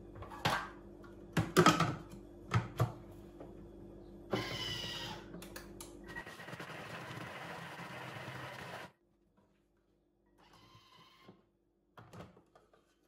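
Thermomix bowl clunked into its base and the lid fitted, then about four seconds in the motor runs at speed 4 for about five seconds, chopping whole oranges with eggs and sugar, and stops abruptly. Faint clicks of the lid being handled come near the end.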